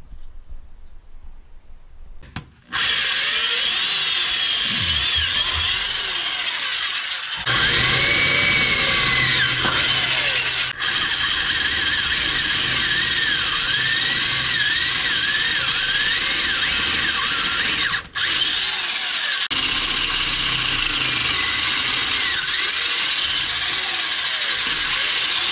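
Right-angle power drill boring through a metal exhaust pipe, the bit grinding and squealing as it cuts while the motor's pitch wavers. It starts about three seconds in, with a couple of brief breaks.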